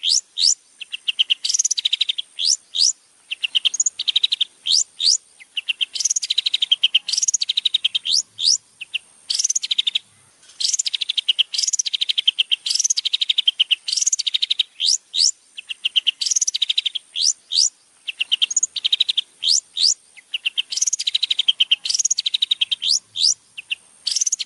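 Songbird song on a training recording: the same phrase repeats about once every second and a half, a fast buzzy trill followed by a few quick rising whistles. A thin, steady high tone runs behind it.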